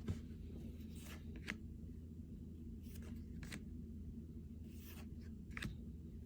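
Trading cards being handled and flipped through by hand: soft slides of card stock with a few light clicks spaced about two seconds apart, over a steady low hum.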